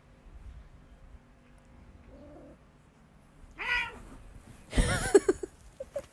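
A cat meowing twice over faint rustling. The first is a short call that rises and falls about three and a half seconds in; the second, about a second later, is louder and starts with a bump.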